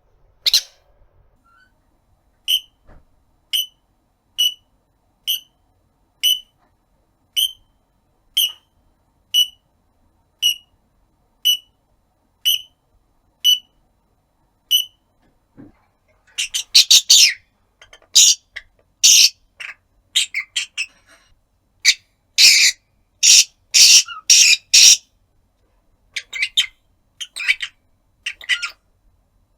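Rosy-faced lovebird giving short, sharp, high calls about once a second: its contact call, calling for its owner. About halfway through it breaks into louder, harsher runs of rapid squawking chatter.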